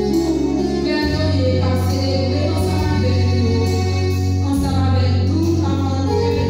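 Small group of women singing a hymn into microphones, with long held bass notes from an accompaniment underneath that change about a second in and again near four and a half seconds in.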